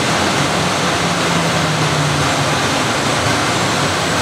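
Bombardier Innovia APM 100 people-mover car running along its concrete guideway on rubber tyres, a steady rolling rush of ride noise. A low hum joins it for about a second near the middle.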